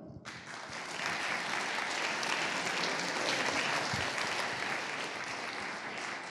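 Audience applauding, swelling over the first second and easing slightly toward the end.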